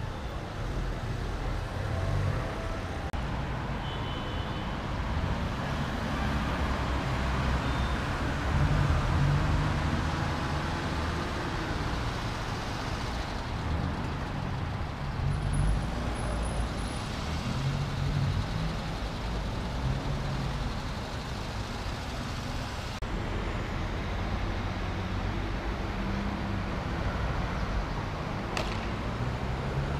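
Street traffic: car engines idling and creeping through a jammed junction, a steady low rumble, with one sharp click near the end.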